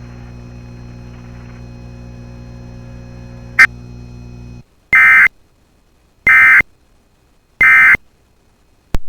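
Steady low electrical hum on a broadcast weather-radio feed, with one click about three and a half seconds in. The hum then cuts out and three short, identical bursts of digital data tones follow, about a second and a quarter apart: the Emergency Alert System (SAME) end-of-message bursts that close a NOAA Weather Radio test tornado warning.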